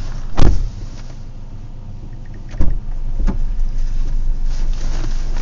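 A car door slams shut about half a second in, followed by two more thumps about a second apart near the middle, over the steady low hum of the car's idling engine.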